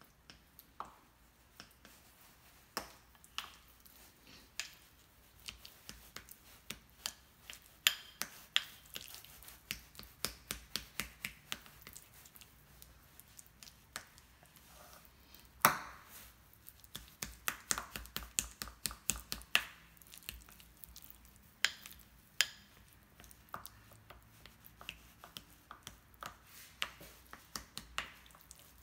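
Plastic fork mashing and stirring avocado in a bowl, clicking and knocking against the bowl in irregular quick runs of several taps a second, with the loudest knock about halfway through.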